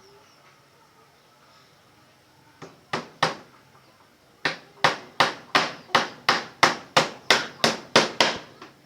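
Hammer blows: a few strikes, then a steady run of about a dozen at roughly three a second.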